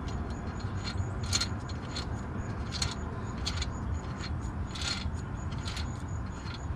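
Light metallic clicks and scrapes, a handful of separate ones, from hardware and hand tools being handled, over a steady low rumble.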